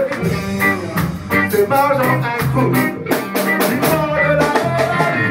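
Live reggae band playing: singing over drums, bass, electric guitar and keyboard, with a steady beat.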